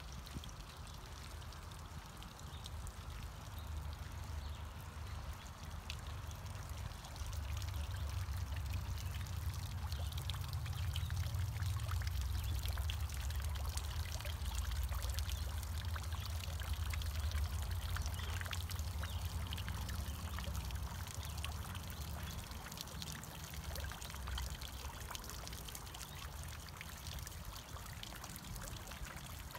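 Tiered garden fountain splashing steadily: water spilling over the rim of the upper bowl and pattering into the basin pool. A low rumble swells under it through the middle stretch.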